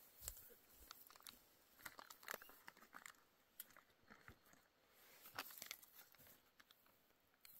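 Near silence, broken by faint, scattered crunching clicks and crackles.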